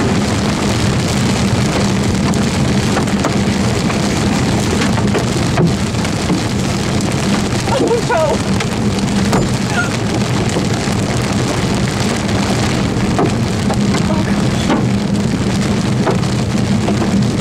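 Heavy rain pelting a moving vehicle's roof and windshield during a severe thunderstorm, over a steady low drone of engine and tyres on the wet road.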